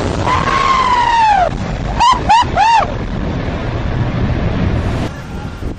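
Roar of a Boeing 747's jet blast on takeoff, with wind buffeting the microphone. A person gives one long high yell and then three short whoops over it. The roar drops away suddenly near the end.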